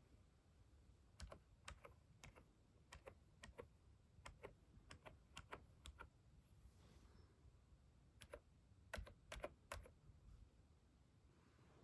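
Typing on a computer keyboard: about two dozen separate key clicks at an uneven pace, starting about a second in, pausing briefly in the middle and stopping about ten seconds in.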